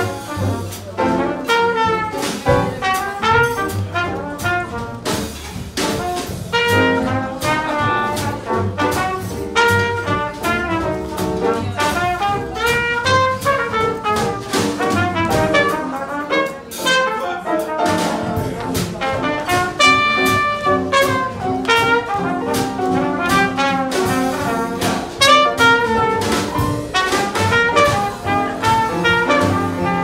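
Live small jazz band playing an instrumental swing passage: trumpet lead over piano, upright bass and drums keeping a steady beat.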